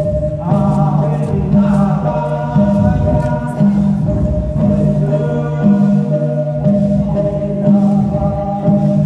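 A group of voices singing together over instrumental backing, with a bass line that repeats about once a second and a long held note beneath the voices.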